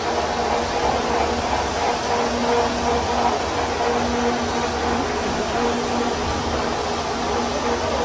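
Continuous rotary carbonization furnace running: a steady rushing, blower-like noise with a constant hum underneath.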